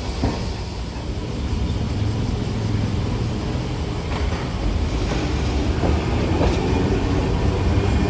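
Hiroshima Electric Railway 650-class tram No. 651 running on street track: a steady low rumble of wheels and motors, with a few sharp clacks over rail joints in the middle. It grows somewhat louder toward the end.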